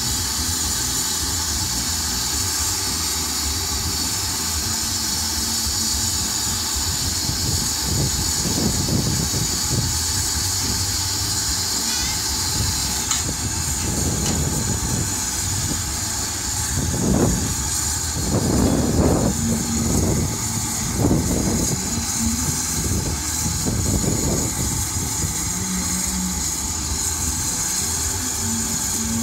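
GWR 5600-class 0-6-2 tank locomotive standing in steam, letting off a steady loud hiss of escaping steam. Uneven low-pitched noise comes and goes in the middle.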